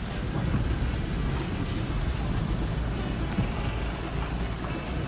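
Car interior noise while driving slowly on a wet, flooded road in the rain: steady engine and tyre rumble with rain on the car. A faint high-pitched tone comes in about two seconds in.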